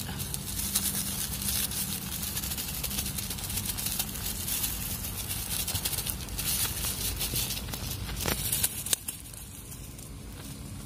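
Dense crackling and sizzling of mushrooms cooking in a pan, which drops off suddenly about nine seconds in.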